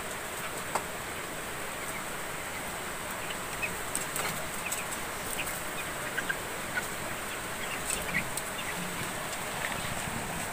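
A pen of young broiler chicks, about three weeks old, giving scattered short high peeps and chirps over a steady background hiss.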